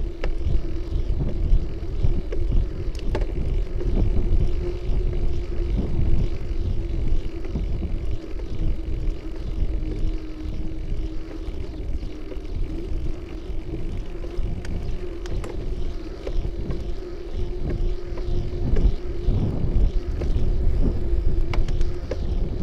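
Wind buffeting and road rumble picked up by a bicycle-mounted camera while riding, with a steady hum underneath and a few sharp clicks from bumps.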